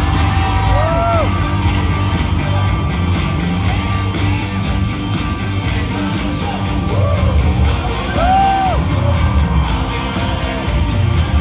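Live rock band playing loud through the concert sound system, heard from within the audience, with a heavy pounding low beat. Crowd voices sing and yell along over it.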